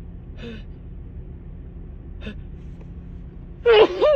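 Two short, faint breaths, then near the end a loud, voiced gasping inhale in two catches, the 'ah… ah…' wind-up before a sneeze, brought on by the nose tickle of a head cold.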